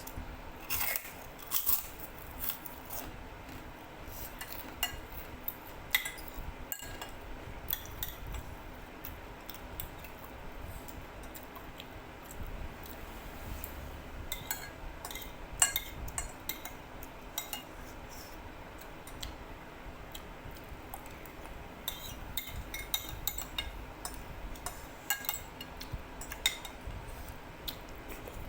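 Cutlery clinking and scraping against a bowl of noodle soup during eating, in short irregular clicks that come thickest near the start and again in the last few seconds.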